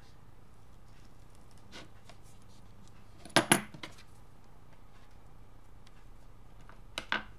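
Small metal modelling tools, a scalpel and tweezers, clicking as they are put down and picked up on a cutting mat: a sharp double click about three and a half seconds in, and a softer double click near the end.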